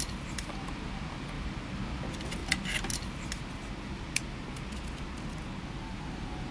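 Small sharp plastic clicks and taps as a plastic vernier caliper is handled and its jaws set against a small strawberry on a ceramic plate: one about half a second in, a quick cluster around two and a half to three seconds, and one more about four seconds in. A steady low background rumble runs under them.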